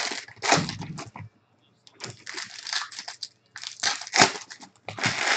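Wrapper of a 2015 Bowman baseball card pack crinkling in irregular bursts as it is handled and opened by hand, with a short pause about a second and a half in.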